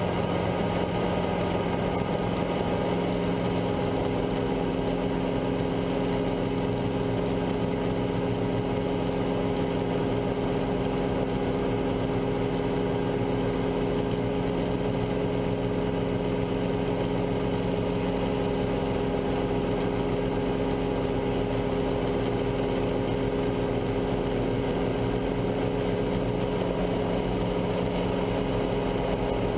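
Steady engine and rotor noise heard inside the cockpit of a Guimbal Cabri G2 helicopter in a low hover: its four-cylinder Lycoming piston engine and rotors run at constant speed, an even drone with several held tones.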